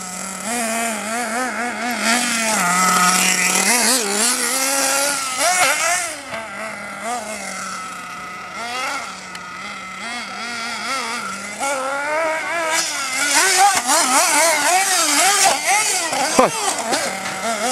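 Nitro engine of a Hobao Hyper 8.5 1/8-scale RC buggy revving up and down as it is driven over the track, its pitch rising and falling with the throttle, with a sharp knock near the end.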